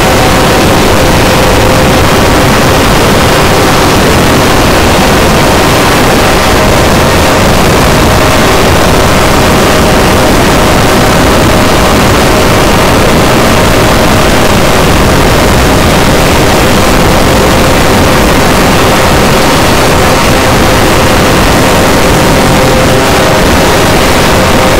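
Vehicle engine running steadily and very loud, close to the microphone, with a constant droning tone and no revving changes.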